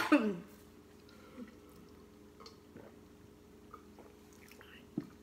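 A cough at the start, then soft sipping, swallowing and small mouth noises as she drinks from a glass, with a short throat sound near the end. The coughing comes from spicy food caught in her throat.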